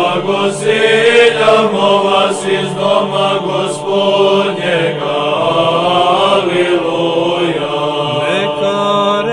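Orthodox liturgical chanting: voices sing a slow melody over a steady held drone note.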